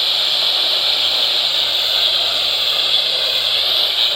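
Steady hiss of static from a radio receiver, even and unbroken, with a faint low hum underneath.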